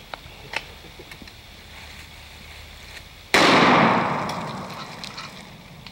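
A single gunshot about three seconds in: sudden and loud, with its echo fading over about two seconds.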